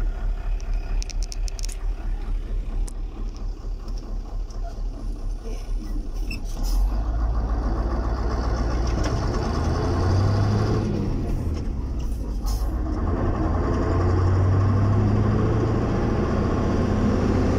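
Vehicle engine and road noise heard from inside the cabin. The rumble is uneven for the first few seconds, then about seven seconds in it steps up louder and steadier as the vehicle pulls onto the road and gathers speed.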